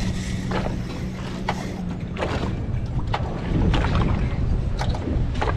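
Wind on the microphone and water lapping against a small fishing boat's hull, with scattered sharp slaps. A low steady hum runs for the first couple of seconds, then stops.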